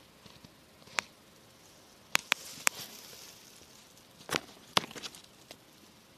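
Sharp clicks and crackles, about six in all, with a light rustle between them, from someone moving through dry grass and twigs.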